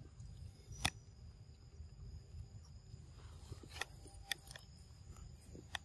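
Faint outdoor background with a low rumble and a steady high-pitched tone, broken by a few sharp clicks or taps: one about a second in and several between about four and six seconds.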